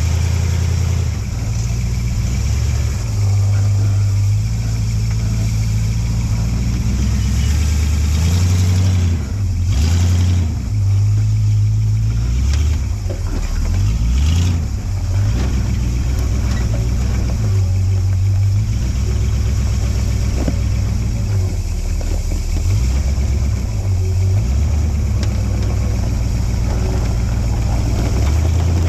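Off-road 4x4's engine working at low revs on a trail, its pitch rising and falling with the throttle. A few knocks sound around ten and fourteen seconds in.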